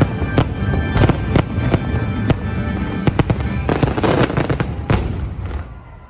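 Fireworks bursting in quick succession, many sharp bangs over music, all cutting off suddenly near the end.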